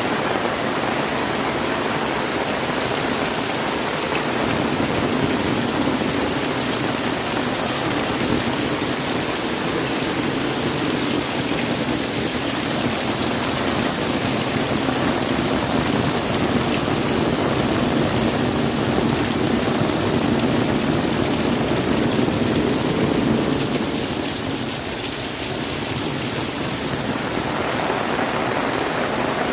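Heavy rain falling steadily, a dense even downpour.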